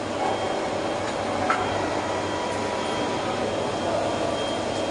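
Heavy workshop machinery running steadily, with a few faint steady whining tones and one short click about one and a half seconds in.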